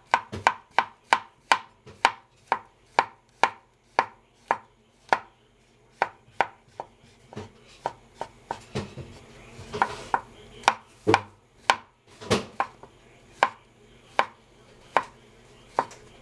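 Kitchen knife chopping on a cutting board, cutting portobello mushrooms: a steady run of sharp strikes about three a second, broken by a couple of short pauses.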